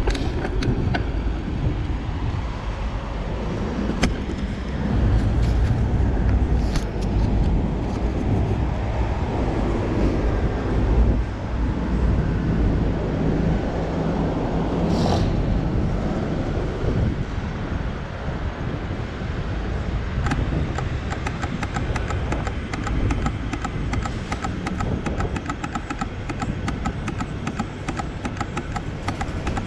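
City road traffic: a steady low rumble of car engines and road noise. A regular ticking joins in about twenty seconds in.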